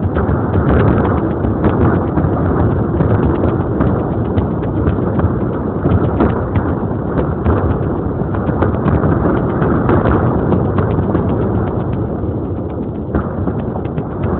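Dense, continuous barrage of fireworks going off, many bangs and crackles running together into a steady rumble. It eases off slightly near the end.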